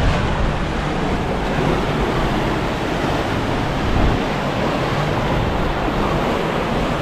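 Sea surf: waves breaking and washing in a steady, swelling rush of noise.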